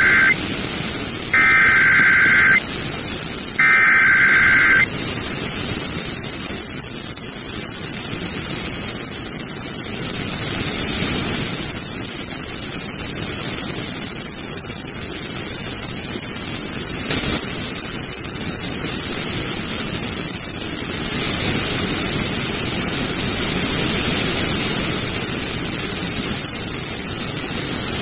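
Three Emergency Alert System SAME data bursts, each about a second long with a buzzy two-tone digital warble, in the first five seconds, followed by steady radio static hiss with no program audio.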